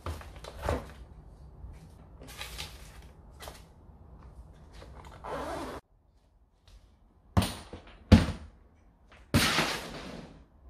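Small hard-shell Starbucks Summer Ready Bag case being handled: soft knocks and rustling as a notebook is put inside and the case is closed. After a short gap come two sharp, loud knocks as the case is struck and tips over, then a longer scraping sound as it slides on the wooden floor.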